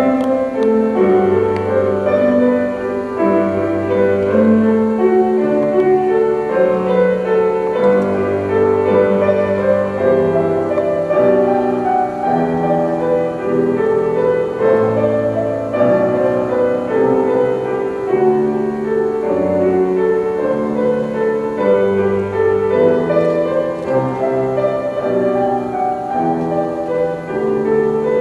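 Slow classical instrumental music played on piano, with held chords under a melody.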